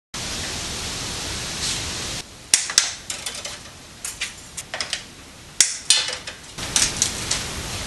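Steady hiss for about two seconds, then scattered sharp clicks and rustles of hands handling electrical cable and a wire cutter while feeding the cable into a breaker panel.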